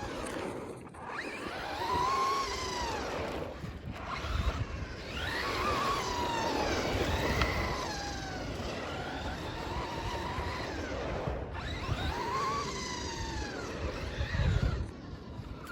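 Race car engines revving, their pitch sweeping up and back down again and again in arcs of a second or two.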